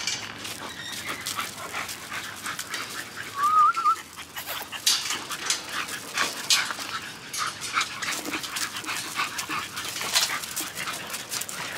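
A dog whining briefly with a short wavering whine about three and a half seconds in, amid many short, irregular scuffling and clicking noises.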